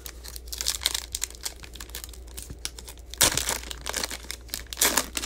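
Foil wrapper of a football trading-card pack crinkling and tearing as it is pulled open by hand, with louder crinkles about three seconds in and again near the end.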